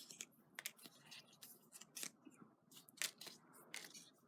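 Faint, irregular rustles and light crisp ticks of paper die-cut craft embellishments and their packaging being handled.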